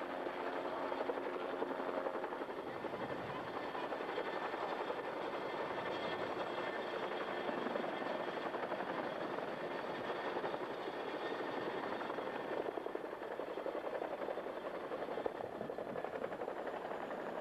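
Helicopter flying, with steady rotor and engine noise.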